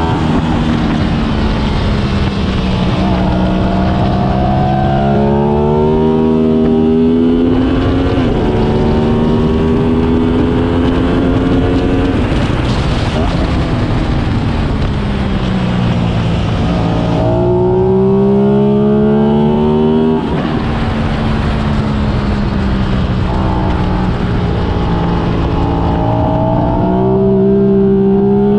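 Sport motorcycle engine at racing speed, heard onboard under heavy wind rush. The revs climb through quick upshifts, fall away under braking for a corner about 13 seconds in, and then climb hard again twice more.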